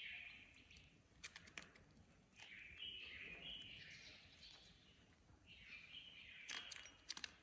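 Faint peeping of ducklings, in three short bouts of high chirps, with a few light clicks or taps in between and a cluster near the end.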